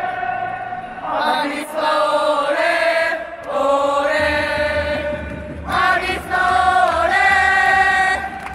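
Singing: a chant-like sung melody in held phrases of one to three seconds, with short breaks between them.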